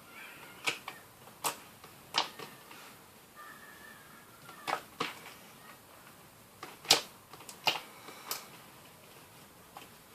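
Fluffy shaving-foam slime being worked by hand, giving sharp pops and clicks at irregular moments, about ten in all.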